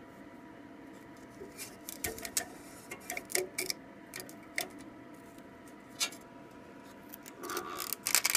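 Scattered light clicks and taps from hands handling a small 3D printer and its parts, with busier handling noise near the end.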